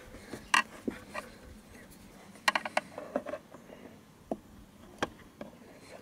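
Scattered light clicks and plastic knocks from handling the door wiring-harness connector and rubber grommet of a VW Golf 5, with a quick run of several clicks about two and a half seconds in.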